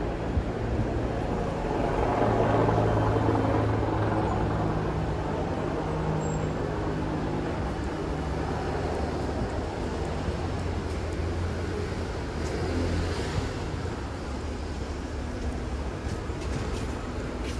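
City street traffic: car engines running and passing close by over a steady traffic noise. The engine hum is loudest about two to four seconds in, and a second engine hum follows later.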